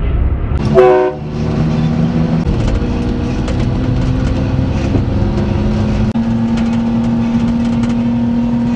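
The 660cc three-cylinder engine of a 1992 Daihatsu Hijet mini-truck running steadily under way, heard from inside the cab, its pitch stepping up twice. A brief, loud tone sounds about a second in.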